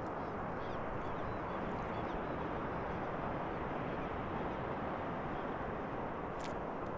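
Steady rushing noise of wind on the microphone and water around a fishing kayak on open sea, with a single sharp click about six and a half seconds in.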